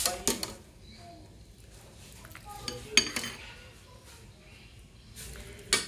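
Cutlery clinking against dishes: a few sharp clinks at the start, a cluster about three seconds in, and one more near the end.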